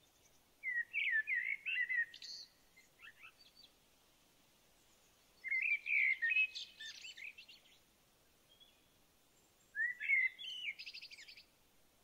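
A songbird singing three song phrases, about four seconds apart, each a quick run of high chirping notes lasting two to three seconds and ending in a fast trill.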